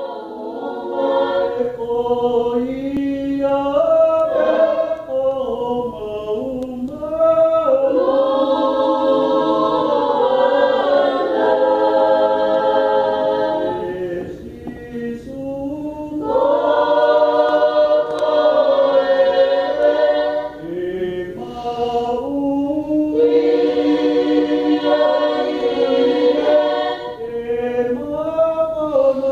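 A choir singing unaccompanied in several-part harmony, long held notes in phrases that swell and fall away between lines.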